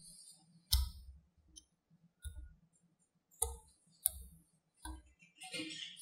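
Small magnetic balls clicking as they are snapped by hand onto a sculpture built of magnetic balls: about five sharp, separate clicks, then a short clattering rattle of several balls near the end.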